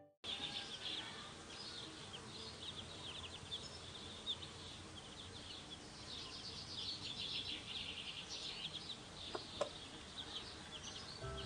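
Many small birds chirping and peeping at once in a dense, steady run of short high calls over a faint outdoor hiss.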